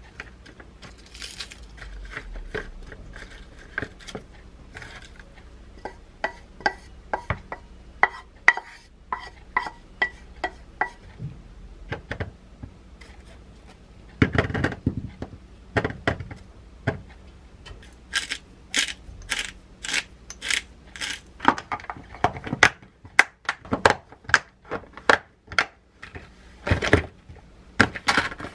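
Lunch-box containers being packed by hand: light knocks and rustles as lettuce goes in, a louder clatter about halfway as cherries are tipped from a metal bowl into a compartment, then a quick run of sharp clicks as the lids are closed and latched.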